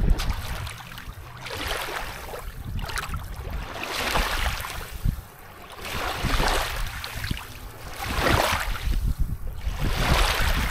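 Small waves lapping on a pebble beach, each wash swelling and fading about every two seconds, over a low rumble of wind on the microphone.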